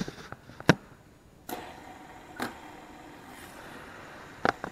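Fidget spinner whirring on a wooden tabletop: a faint steady hum that starts about a second and a half in, with a few sharp clicks as the spinners are handled and set down.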